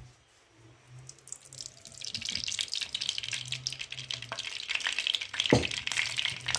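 Hot cooking oil in a pan starting to sizzle and crackle, building from about two seconds in, with one sharp knock of a utensil against the pan about five and a half seconds in.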